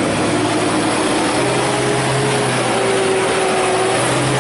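Isuzu truck's diesel engine running steadily, a constant drone whose pitch wavers slowly.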